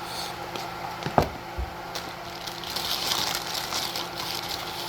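Kitchen utensil handling: a single sharp knock about a second in, a dull thump just after, then a stretch of soft scraping or rustling, like mixing in a bowl, over a steady appliance hum.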